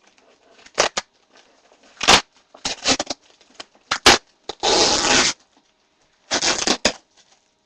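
Packing tape being ripped off a cardboard shipping box: several short sharp tearing strokes, then a longer rip about five seconds in and another near the end, among knocks from handling the box.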